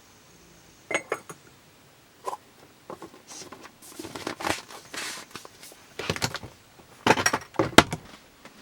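Household handling sounds in a small room: scattered sharp clicks and knocks with rustling and short hissing noises between them, the loudest knocks near the end.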